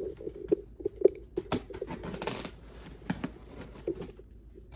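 Hands going through computer-part boxes and packaging: scattered clicks and taps, with a short rustle of packaging about two seconds in.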